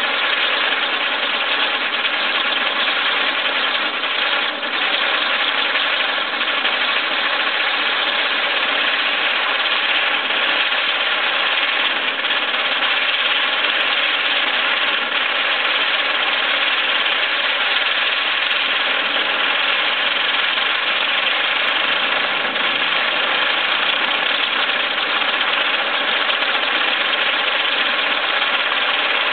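Standard Fireworks Rev Wheel, a spinning wheel firework, burning and throwing sparks: a steady, loud hissing buzz that holds an even level.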